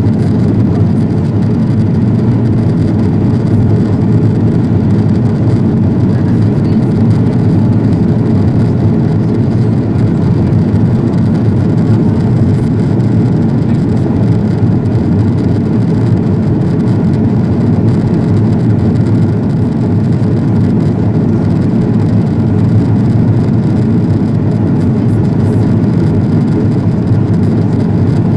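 Steady cabin roar of an Airbus A330-200 airliner in flight: engine and airflow noise heard inside the cabin, low and even, with no change in level.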